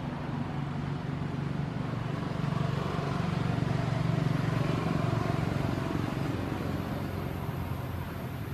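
A motor vehicle's engine hum, growing louder through the middle and fading away again as it passes.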